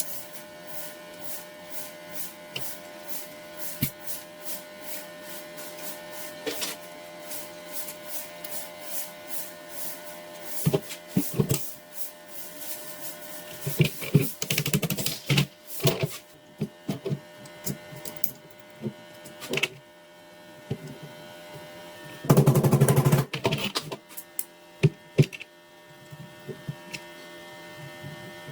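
Small metal pistol parts being handled and worked on, giving a run of clicks and taps over a steady hum, busiest in the middle. Near the end there is a louder burst of noise lasting about two seconds.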